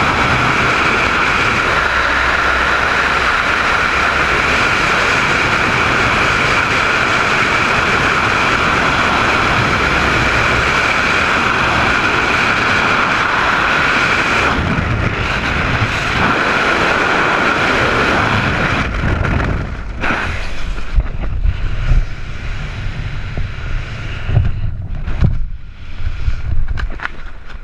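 Freefall airflow blasting over the camera microphone: a loud, steady rush with a whistling tone in it. About two-thirds of the way in it breaks up into gusty, uneven buffeting with the hiss gone, as the parachute opens and the fall slows.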